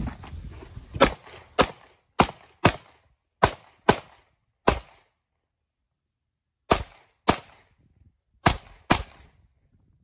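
A pistol fires eleven shots at practical-shooting targets, mostly as quick pairs about half a second apart. There is a pause of about two seconds midway as the shooter moves to a new position.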